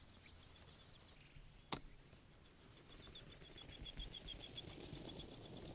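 Near silence broken by faint, rapid high chirping, an even run of about seven notes a second. A single sharp click comes a little under two seconds in, and a faint rushing noise swells from about three seconds on.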